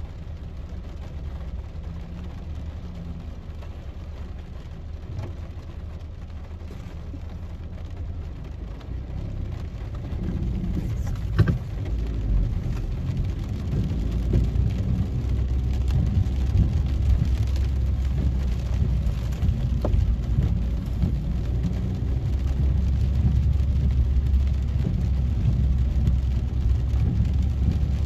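Inside a car in heavy rain: a steady low engine and road rumble with rain pattering on the bodywork and windscreen. About ten seconds in it grows louder as the car gets moving on the wet road, with a single sharp knock shortly after.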